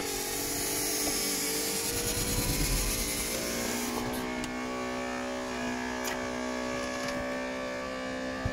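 Porsche Boxster 986's electric soft top opening: its motor runs with a steady whir while the roof folds back, the whir settling to a lower, even tone partway through, with a few sharp clicks from the top mechanism.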